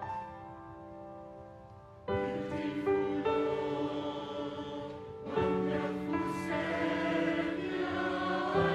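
A church choir singing a slow worship song with piano accompaniment. A held piano chord fades for the first couple of seconds, then the choir comes in, with a new phrase starting about five seconds in.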